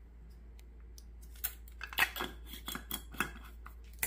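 Light clicks, taps and scrapes of a plastic measuring spoon against a glass spice jar and bowl as cayenne pepper is measured out and sprinkled onto diced chicken. It is quiet for about the first second and a half, then a string of short taps follows.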